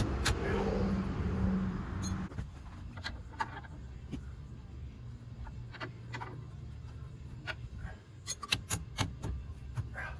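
Scattered sharp metallic clicks and knocks from tools and suspension parts as a new upper control arm is worked into place on a pickup's front suspension, bunched together near the end. A steady low rumble runs under the first two seconds.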